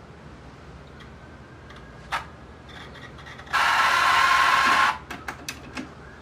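Pioneer CT-W840R cassette deck's tape mechanism: a single click, then a loud rushing whir lasting about a second and a half, followed by several quick clicks.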